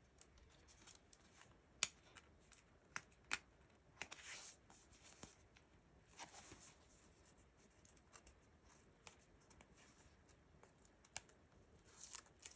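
Faint handling of a pack of die-cut paper tags being opened: a few sharp clicks and short rustles of packaging and card.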